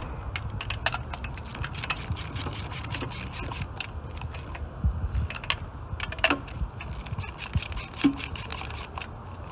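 Spark plugs being tightened into the Audi 3.0L V6's aluminium cylinder head with a socket on a long extension: many quick, irregular metallic clicks, some in short runs, over a low steady hum.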